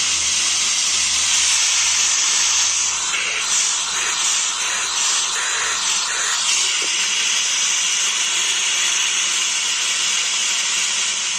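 Bluetooth speaker's FM radio playing loud, steady static hiss: the tuner is in FM mode with no station tuned in.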